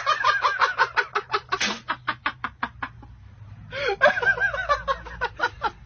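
Hard laughter in rapid short pulses, about seven a second, for the first three seconds, then after a brief pause a second stretch of laughing voice.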